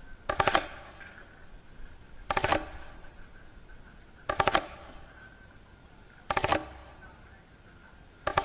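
Short bursts of rapid clicking, each about a third of a second long, repeating every two seconds, four times, over a faint steady high tone.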